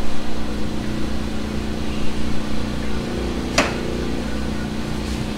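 Steady machine hum in a workshop, with one sharp metallic click about three and a half seconds in as metal is handled at a car's exhaust pipe.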